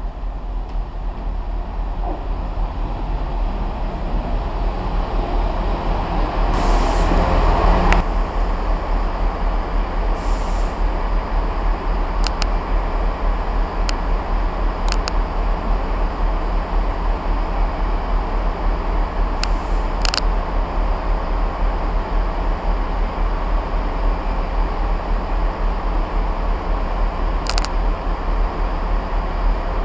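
Northern diesel multiple unit running in to the platform, growing louder over the first several seconds, then cut off abruptly. After that there is a steady low rumble, with a few short, sharp clicks.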